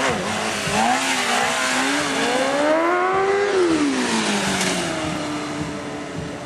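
Sport motorcycle engine revving: its pitch climbs steadily for about two and a half seconds, drops back, then holds at a steady lower pitch toward the end.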